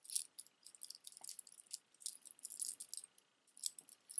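Plastic beads and gold-tone metal medallion charms on a stretchy bracelet clicking and jingling against each other as the bracelet is turned over in the hands, in quick irregular clusters of light clicks.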